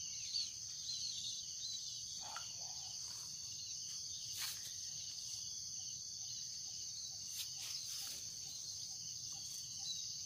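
Steady high-pitched drone of insects, with a few faint clicks and taps.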